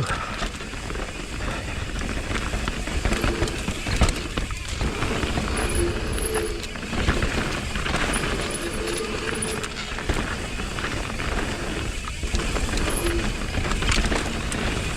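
Mountain bike descending a rough downhill trail: tyres running over dirt and rocks, with frequent knocks and rattles from the bike, and wind noise on the microphone.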